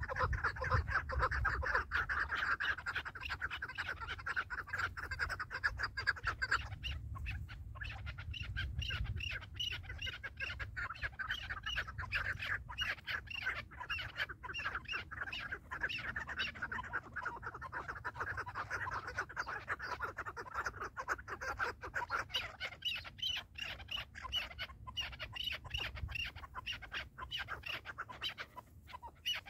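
Chukar partridges calling: fast runs of repeated clucking notes that go on almost without pause, easing off briefly about seven seconds in and again past the twenty-second mark.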